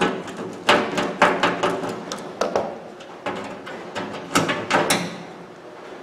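Irregular metal clicks and clinks of a screwdriver and bit working against a microwave oven's sheet-metal cabinet while its back screws are taken out, some clicks ringing briefly.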